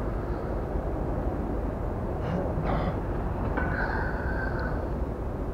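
Steady outdoor background rumble and hiss, with a thin high tone held for about a second some three and a half seconds in.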